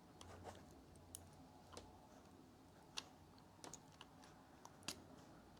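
Near silence with a few faint, irregular small clicks and ticks, made by handling the small plastic cable connector between a model locomotive and its tender while easing it out.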